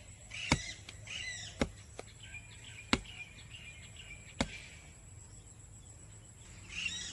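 Four sharp knocks, spaced unevenly about one to one and a half seconds apart, with faint bird-like chirps between them.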